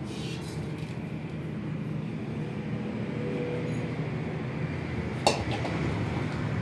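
Steady low rumble of workshop background noise, with one sharp metallic clink about five seconds in as a part is handled in a metal washing bowl.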